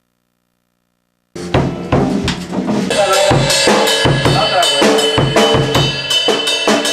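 Silence, then about a second in a song starts abruptly on a full drum kit: bass drum, snare and cymbals playing a steady beat, with other pitched instruments underneath.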